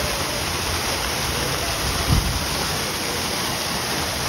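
Fountain water jet splashing steadily back into its basin, a constant rushing patter. A brief low thump about two seconds in.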